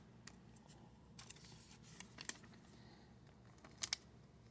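Faint clicks and light rustles of trading cards being handled and flipped through by hand, with a sharper double click near the end.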